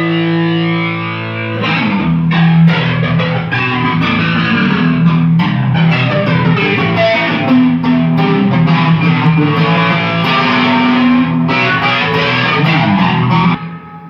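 Intro music led by electric guitar, with bass, cutting off abruptly shortly before the end.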